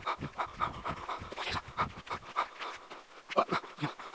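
A dog panting rapidly, about four or five breaths a second.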